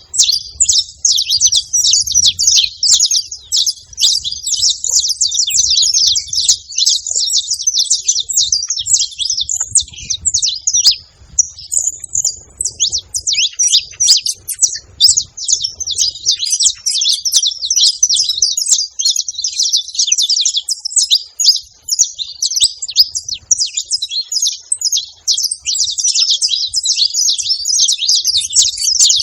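Saffron finches chirping rapidly and without pause in dense, overlapping high calls, easing briefly about eleven seconds in before picking up again.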